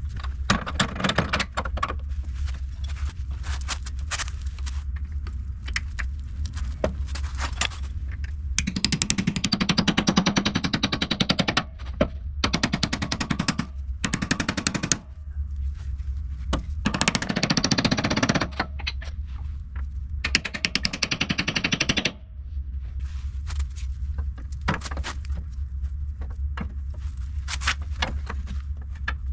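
Power wrench driving suspension bolts, rattling in rapid hammering bursts, four longer ones in the middle, over a steady low hum.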